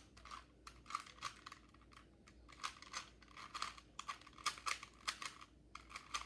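Rubik's Cube being turned quickly by hand mid-solve: rapid, irregular plastic clicking of the layers, in quick runs of turns with short pauses between.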